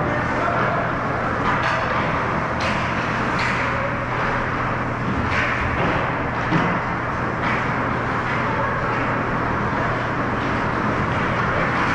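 Ice hockey rink during play: a steady hum of arena noise with scattered sharp knocks of sticks, skates and puck, the loudest about six and a half seconds in.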